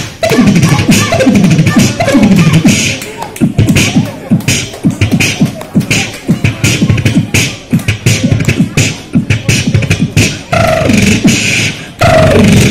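A man imitating a jazz drum kit with his mouth, beatbox-style, amplified through a microphone: a fast, continuous run of kick thumps, snare and cymbal clicks. Some pitched vocal sounds come in near the end.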